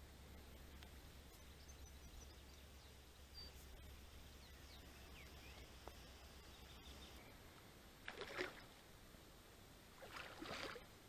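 Near silence with faint bird chirps, broken by two short noises, one about eight seconds in and a longer one near the end.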